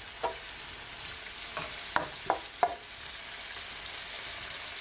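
Escovitch dressing of sliced peppers, onion and carrot in oil and vinegar sizzling steadily in a nonstick frying pan. A spatula stirring knocks and scrapes against the pan about five times in the first three seconds.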